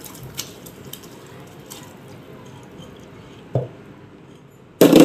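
Soaked basmati rice tipped from a bowl into a steel pot of boiling water: a steady watery hiss with a few light clinks, a sharper knock of the bowl against the pot, then a loud thud near the end.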